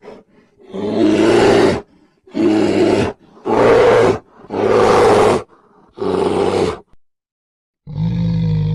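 A bear roaring five times in a row, each roar a rough, noisy call under a second long with short breaks between. After a second of silence, music with a low brass tone starts near the end.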